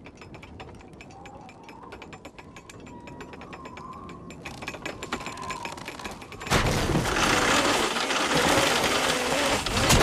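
Rapid, uneven clicking and rattling of an early oil drilling rig's mechanism, with a faint wavering tone behind it. About six and a half seconds in, a loud rushing noise comes in suddenly and holds to the end.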